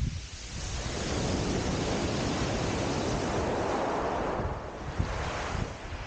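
Surf breaking and washing up a shingle beach: a wave swells up about half a second in and eases off after four seconds or so. Wind buffets the microphone.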